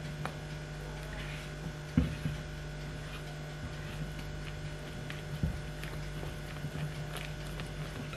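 Spatula stirring muffin batter in a mixing bowl: soft scraping with two knocks against the bowl, about two seconds in and again about five and a half seconds in, over a steady electrical hum.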